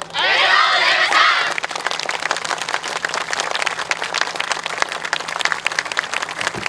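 Many voices shouting and cheering together for about a second, then dense, steady applause.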